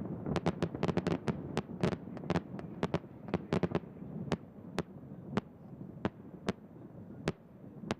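Fireworks display bursting: a rapid string of sharp cracks and bangs over a continuous low rumble. The cracks come thick for the first few seconds, then thin out to single reports.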